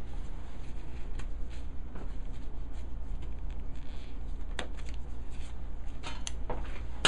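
Scattered faint clicks and light taps of metal surgical instruments being handled while the toe's nail bed is cleaned, a few sharper ones several seconds in, over a steady low hum.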